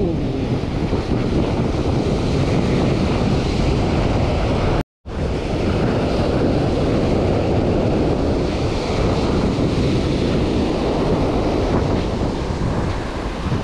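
Surf breaking and washing up a sandy beach, with wind buffeting the microphone. All sound drops out briefly about five seconds in.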